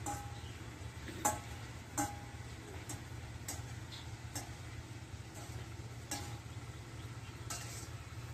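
A metal spoon clinking against a metal bowl as she stirs, about eight irregular clicks with the loudest two near the start, over a steady low hum from the gas stove and frying pan.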